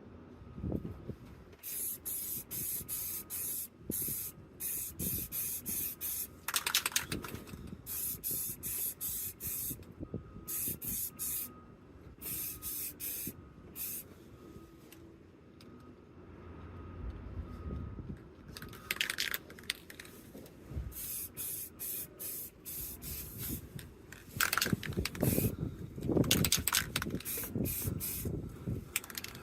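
Aerosol spray-paint can sprayed in repeated short hissing bursts of about a second each, with brief gaps between them; the spraying pauses for a few seconds about halfway through.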